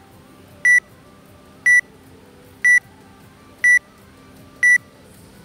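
Workout timer counting down: five short, high beeps, one a second, the final seconds of a ten-second countdown to the start of a workout.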